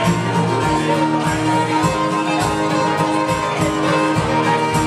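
Fiddle and acoustic guitar playing a tune together, over a steady low thump on the beat.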